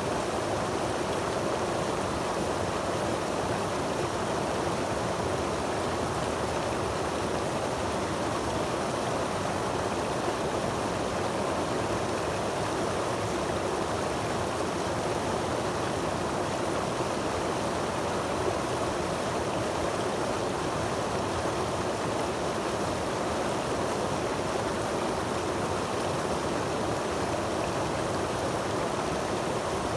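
Creek water rushing and splashing over granite boulders into a pool, a steady unbroken rush.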